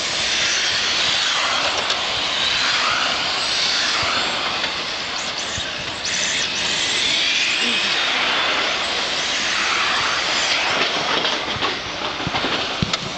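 Several radio-controlled model race trucks running on an asphalt track, their motors making a continuous high buzzing whine that swells and fades as the cars pass and change speed.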